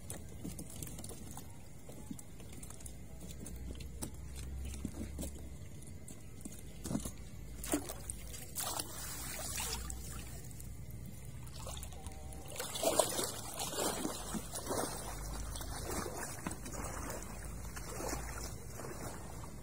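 Water trickling and sloshing, with scattered light knocks; it gets busier with louder splashes about two-thirds of the way in.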